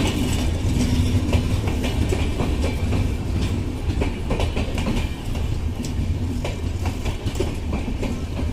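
Ganga Sutlej Express LHB sleeper coaches rolling slowly alongside the platform: a steady low rumble, with the wheels clacking and clicking irregularly over the rail joints.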